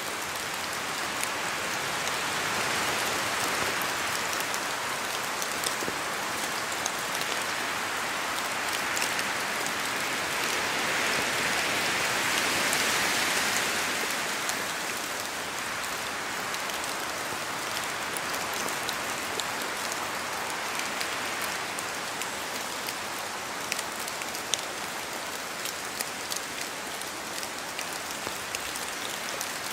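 Steady rain falling on forest foliage, with scattered single drops ticking sharply. The rain swells a few seconds in and again, louder, near the middle.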